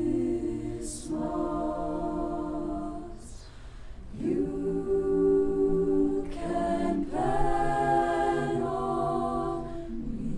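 Student choir singing long held chords in phrases, with brief breaths between them and crisp 's' consonants.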